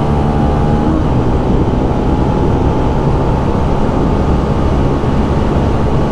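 Benelli BN125's single-cylinder 125 cc engine running steadily under throttle while the bike is ridden at road speed, with heavy wind rush on the microphone.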